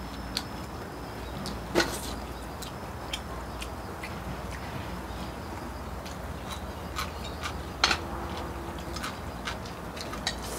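Chopsticks and tableware clicking and tapping against bowls and a metal pot while eating, in scattered light clicks with two sharper ones, about two seconds in and again near eight seconds, over a steady low background rumble.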